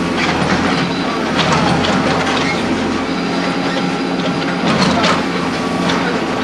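Road-repair machinery engine running steadily at a constant pitch, with irregular metallic clattering and scraping over it.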